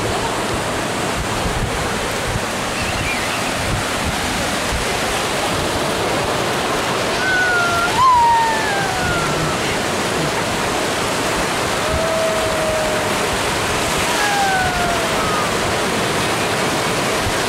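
Ocean surf breaking and washing up the beach in a steady rush of water. A few brief, high, falling cries sound over it, the loudest about eight seconds in.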